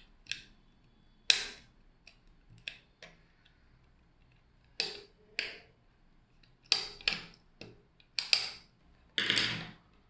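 Irregular short clicks, taps and scrapes of hands handling a small circuit board, fitting speaker wires into its screw terminals.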